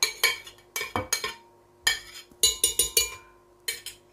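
Sharp clinks and taps of a black bowl knocking against the rim of a glass blender jar while eggs are tipped and scraped into it, in quick clusters, a few ringing briefly.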